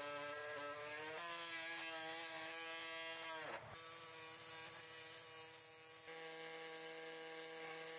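Small cordless power tool cutting through the old driveshaft carrier's frame: a steady motor whine that rises in pitch as it spins up. It winds down and stops about three and a half seconds in, then starts again for the second cut.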